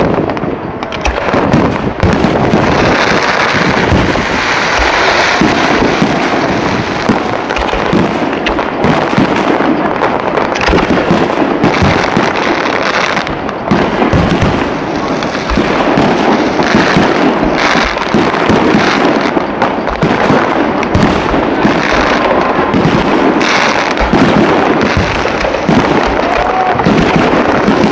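Fireworks display: a dense, continuous barrage of overlapping bangs and crackling that never lets up.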